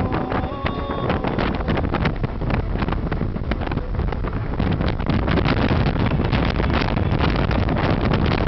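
Wind buffeting the microphone in a moving car, a loud rough rush with constant crackling gusts over road noise.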